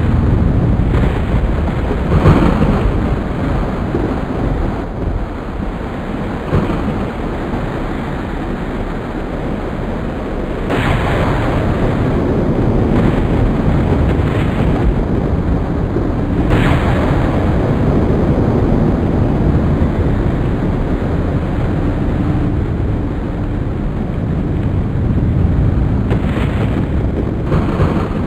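Loud storm noise: a heavy, rumbling roar of wind and weather, broken by several sudden louder bursts like thunder cracks or gusts.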